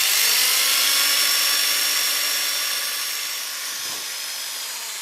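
Power drill running steadily with a 5 mm bit, drilling a fixing hole through a steel tank wall via a jig. It gives a steady whine that eases a little in level and pitch near the end.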